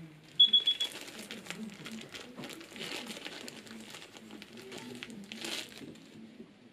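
A quick run of four short, high electronic beeps, then a plastic bag of powder paint crinkling and rustling as it is handled, with a louder crinkle near the end.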